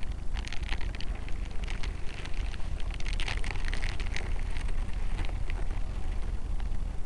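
Wind buffeting the microphone of a miniature camera hanging under a balloon, with a gusting rumble throughout. A crackling, rustling patter runs over it through the first half and dies away after about four and a half seconds.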